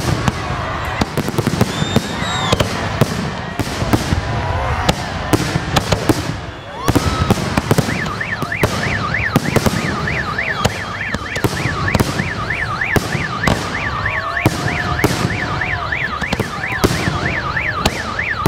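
Fireworks display: a rapid string of aerial shells bursting with sharp bangs and crackle. From about eight seconds in, a car alarm warbles up and down about three times a second under the bangs.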